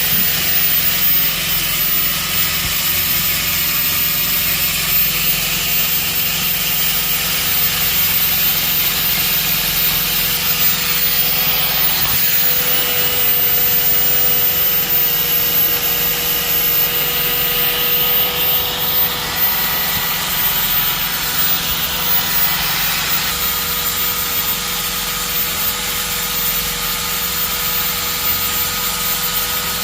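A small belt sander runs steadily, sanding down fiberglass on a car's rear corner panel, with a constant motor whine over the scrape of the belt.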